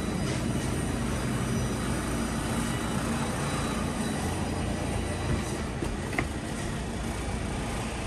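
Steady low rumble and hiss of a grocery store's background noise: refrigerated display cases and ventilation running. There are a couple of light knocks after about five seconds.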